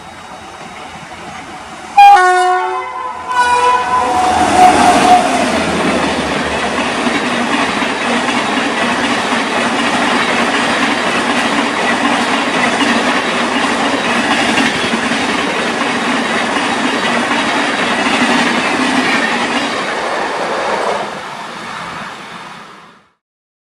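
A train's horn sounds in a short loud blast about two seconds in and once more a second later. Then the train runs past with a steady rumble and wheel clatter, which fades away near the end.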